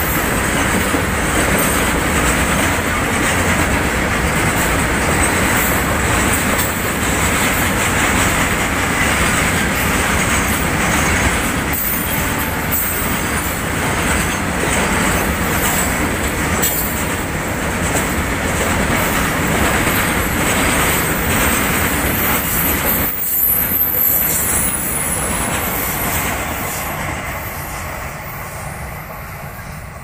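A long goods train of covered wagons rolling past: a steady rumble and clatter of wheels over the rails, with a thin high wheel squeal at times. Near the end it fades as the brake van passes and the train draws away.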